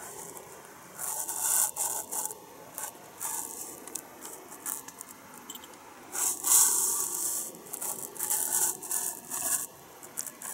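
Irregular bursts of rustling and scraping close to the microphone, the sound of fabric bedding being rubbed and shifted, coming in clusters with short quiet gaps.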